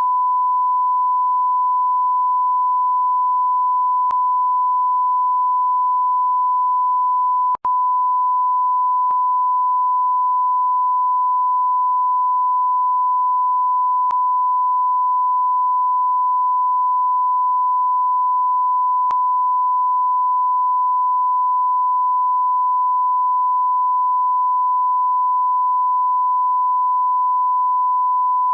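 Continuous 1 kHz sine-wave bleep, the standard censor bleep tone, held steady at one pitch and level, with a split-second break about seven and a half seconds in.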